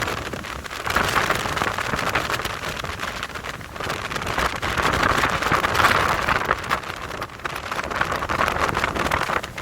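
Strong wind gusting and buffeting the phone's microphone: a rushing hiss over a low rumble that swells and eases every few seconds.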